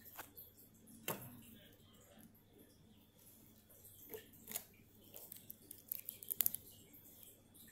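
Thinking putty squeezed and pulled apart by hand, giving faint squishes and scattered sharp little clicks and snaps, with a quick run of them about six seconds in.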